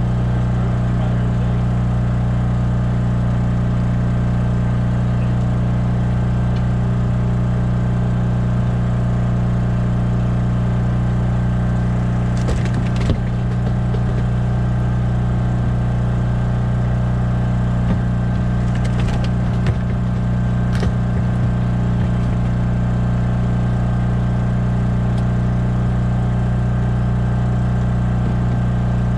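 Small engine running at a steady, unchanging speed, a constant low drone. A few light knocks of gear on the boat deck come about midway and again about two-thirds in.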